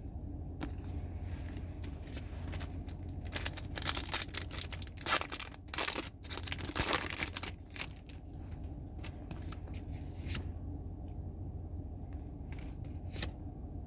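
A foil Pokémon card pack being torn open and its wrapper crinkled in irregular bursts, with light clicks and rustles of cards being handled.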